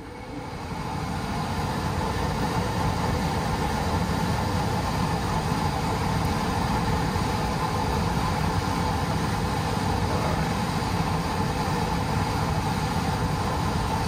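Goodman furnace blower motor starting up and running steadily, air rushing through the cabinet; the sound builds over about the first two seconds, then holds level.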